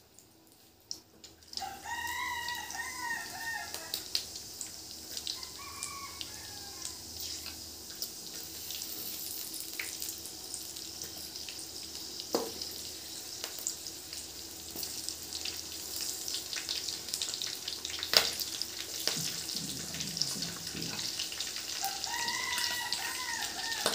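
Whole spices, dried red chillies, green chillies and garlic sizzling and crackling in hot oil in a metal wok, a steady hiss with many small pops. A rooster crows about two seconds in, faintly again near six seconds, and once more near the end.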